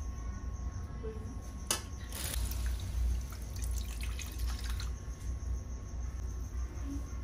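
Ginger water poured from a plastic container into an aluminium wok of sugar, splashing and trickling for about three seconds. Just before the pour a metal ladle clicks once against the wok, over a steady low hum.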